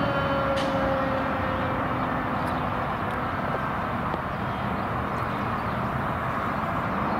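Fire engine heading away: a steady tone slowly falling in pitch fades over the first two seconds, leaving steady road and traffic noise.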